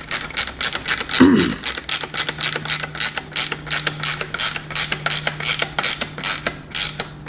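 Ratchet wrench clicking quickly and evenly, about five clicks a second, as it tightens the threaded air-spring top cap on a RockShox Zeb fork leg down to snug. A short low sound slides down in pitch about a second in.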